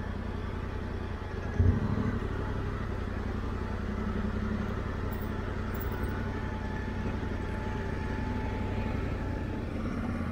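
Motorcycle engine running steadily at low revs, with a brief louder blip of throttle about two seconds in.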